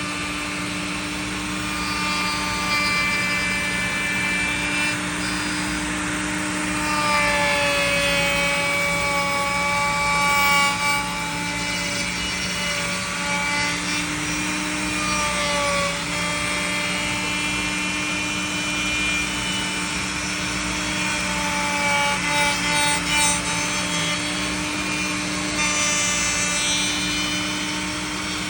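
Electric wood router running with a dovetail bit, cutting a wooden knob on a pantorouter. The motor's steady whine wavers in pitch every few seconds as the bit takes passes through the wood.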